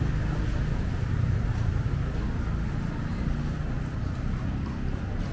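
Busy city street: a steady rumble of passing traffic.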